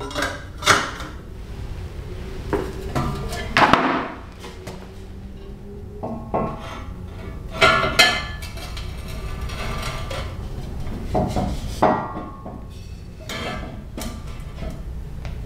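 Steel exhaust pipe sections clanking and knocking against each other as the pipe ends are slid into place: irregular metal knocks, some of them ringing briefly.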